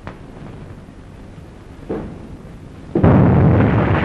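Thunderstorm sound effect: a quiet stretch of faint low noise, then a sudden loud crash and rumble of thunder about three seconds in that keeps on rolling.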